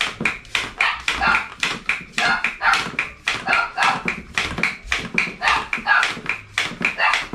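Double-action bicycle hand pump worked fast, a hissing puff of air on every stroke at about three strokes a second, inflating a new inner tube.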